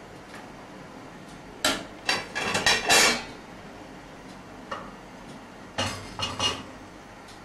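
Metal kitchen utensils (a ladle and a long-handled skimmer) clanking against stainless steel pots: a quick run of clanks about two seconds in, a single click, then another short run of clanks a few seconds later.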